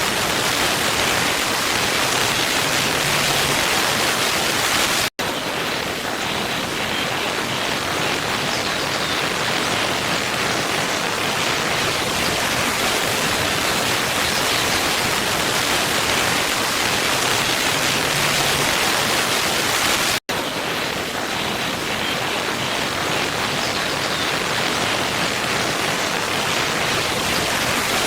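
Steady rushing of a waterfall. The sound cuts out for an instant twice, about five seconds in and again about fifteen seconds later, where a looped recording restarts.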